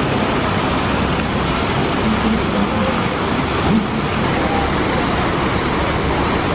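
Porsche 911 flat-six engines running at low revs as the cars roll slowly past, under a steady rushing background noise.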